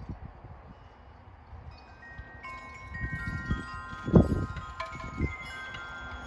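Wind chime ringing: several metal tones at different pitches struck one after another from about two seconds in, each left to ring and overlapping the others. Low rumbling thumps sound under them, the loudest about four seconds in.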